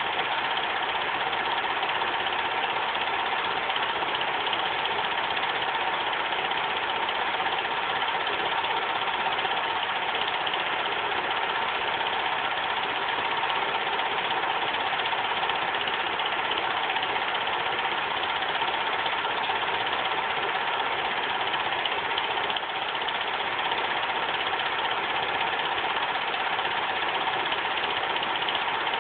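Bell & Howell dual 8 movie projector running Super 8 film, a steady mechanical whir of its motor and film transport.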